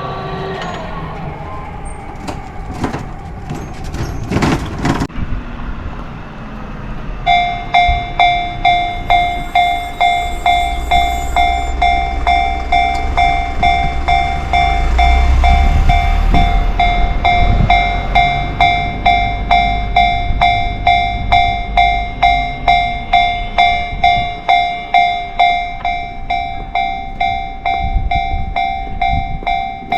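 Japanese level-crossing warning bell starting up about a quarter of the way in, an electronic clang repeating about twice a second to signal an approaching train. Partway through, a passing train's low rumble rises under it and fades.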